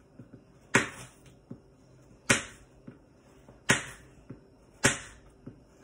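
Knife slicing an apple into thin strips, the blade knocking sharply down onto the cutting surface four times, about every second and a half, with light ticks in between.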